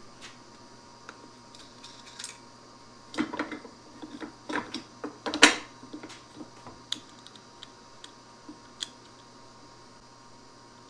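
Scattered clicks and knocks of workshop items being handled, with a cluster of louder knocks in the middle and the loudest clack about five and a half seconds in.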